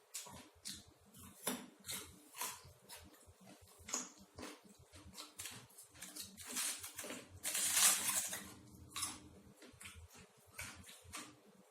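A person chewing and crunching food close to the microphone, with irregular crisp clicks and crackles and a louder, longer crunch about eight seconds in.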